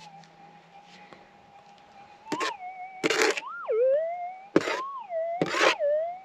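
Minelab GPX 6000 gold detector's steady threshold tone, swelling up and dipping in pitch several times as a scoop of dirt is passed over the coil: the target signal, showing the target is in the scoop. Short bursts of gravel rattling in the plastic scoop come between the swells.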